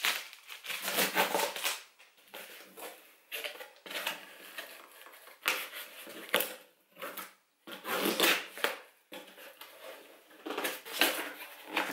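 Printed packing tape being torn and peeled off a cardboard shipping box, then the cardboard flaps pulled open: a series of short tearing and rustling bursts with brief pauses between.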